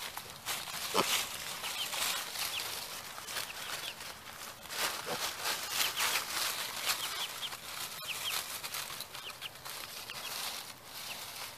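A young chicken peeping in short, high, rising chirps, over rustling and crackling of dry leaves and hay as a piglet roots and eats at a pumpkin.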